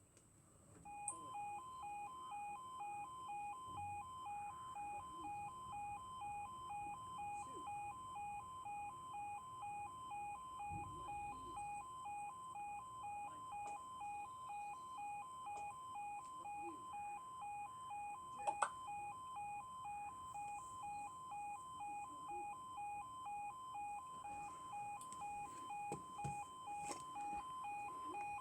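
Automatic level crossing audible warning sounding: an electronic two-tone alarm pulsing about twice a second, starting about a second in, signalling that the crossing sequence is running for a train.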